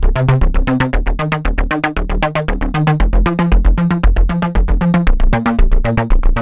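Electronic background music: a synth bass line stepping between notes over a steady beat of about four strokes a second.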